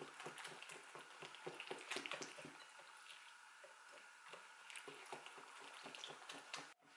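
Faint, quick, regular tapping of kitchen food preparation, utensil on board or bowl, at about five or six strokes a second, cut off abruptly for a moment near the end.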